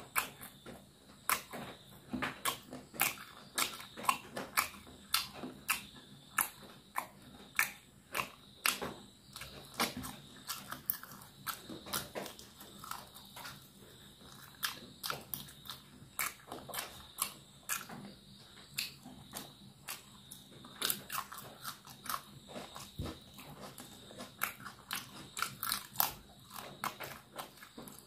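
Close-miked chewing and biting of spiced chicken leg pieces eaten by hand: a steady run of wet mouth clicks and lip smacks, about two loud ones a second.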